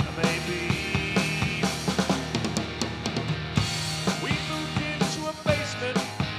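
Rock band music: a drum kit keeps a steady beat on bass drum and snare over bass and other instruments.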